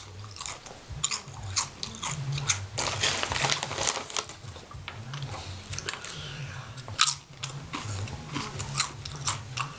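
Lay's Sriracha potato chips being bitten and chewed close to the microphone: a run of irregular, sharp crunches.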